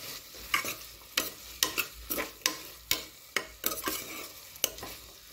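Metal ladle stirring and scraping vegetables against the inside of a pressure cooker pot, in quick irregular strokes about two a second, as the vegetables are mixed with mint and coriander leaves.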